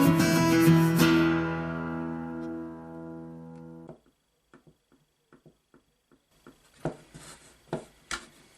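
Acoustic guitar background music that rings out, fades and stops abruptly about four seconds in. It is followed by a string of faint, light clicks and a few louder knocks near the end.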